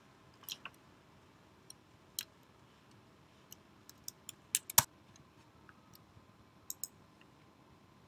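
Computer keyboard keys tapped one at a time: a dozen or so scattered light clicks, with a louder key press about five seconds in.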